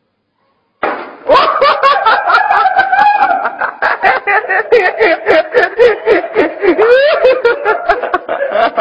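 People laughing hard in quick, cackling pulses, starting suddenly about a second in and staying loud.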